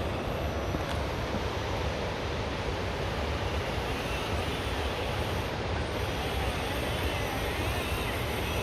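Radio-controlled scale rock crawler's electric motor whining faintly, its pitch wavering as it crawls, over a steady low rumbling noise.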